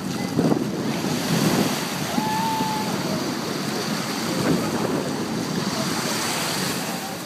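Ocean surf washing steadily in the shallows, with wind rumbling on the microphone.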